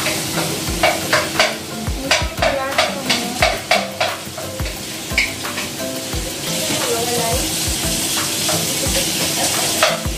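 Food sizzling in a frying pan as it is stirred, with the spatula scraping and knocking against the pan in quick strokes, about three a second, during the first few seconds. The sizzling grows louder about six and a half seconds in.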